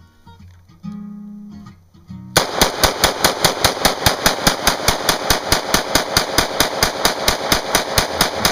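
Smith & Wesson M&P AR-15 semi-automatic rifle in .223/5.56 firing a long, rapid string of evenly spaced shots, about five a second, from a 30-round magazine. The shooting starts a couple of seconds in.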